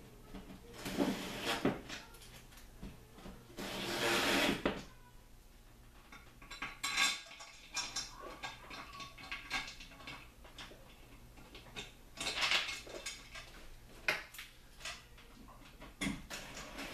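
Metal clinks, knocks and clatter as the TV stand's neck and base are handled and fitted against the wall, in irregular bursts, the loudest about four seconds in.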